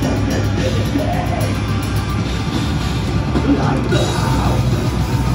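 A black metal band playing live: distorted electric guitars and a drum kit, with harsh shouted vocals.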